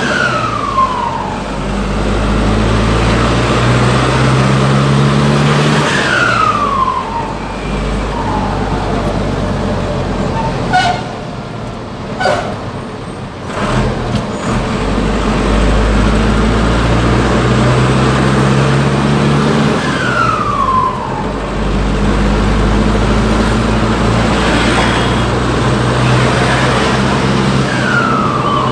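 Cummins 4BT turbo-diesel of a JAC 1063 truck pulling through the gears, heard from inside the cab. Its pitch climbs with each gear. Each time the throttle lifts for a shift, the Holset HX30W turbo, modified ('pente') to sing, gives a short falling whistle, several times over.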